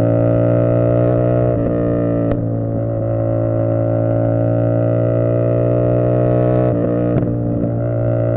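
Tuned 450SS motorcycle's engine and exhaust cruising at steady revs, the note slowly rising in pitch as it pulls. The note wavers briefly twice, about a second and a half in and again near the end, each time with a short sharp tick.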